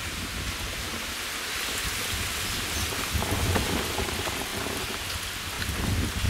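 Neyyappam batter deep-frying in hot oil in a small kadai, the oil sizzling and crackling steadily, with a few dull low knocks about three seconds in and near the end.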